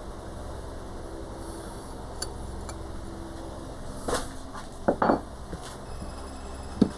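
A few light metallic clinks and knocks from motorcycle fork parts and tools being handled, about four seconds in, twice around five seconds, and once just before the end, over a steady low hum.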